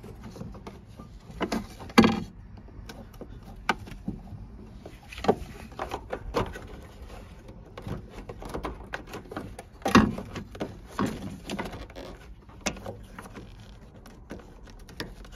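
Hand work on a car's underside: scattered clicks, knocks and clatters of plastic and metal parts being handled and fitted. The loudest knocks come about two seconds in and about ten seconds in.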